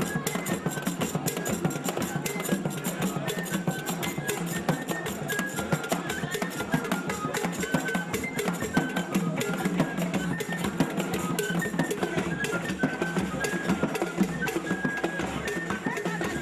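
Traditional drum and percussion music with a dense, fast run of strokes, short high notes recurring over it.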